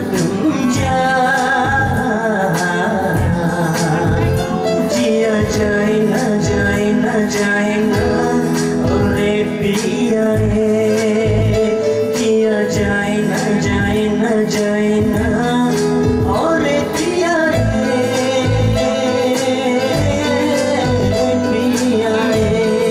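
A man singing a melody into a microphone over an electronic keyboard accompaniment with a steady drum beat, amplified through a PA system.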